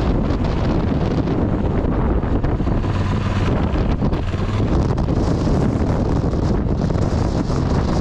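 Strong wind buffeting the microphone: a loud, steady rush with low rumbling gusts throughout.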